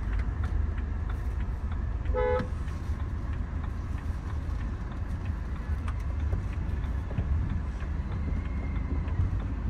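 Steady low road and engine rumble from a car on the move, with one short car-horn toot about two seconds in.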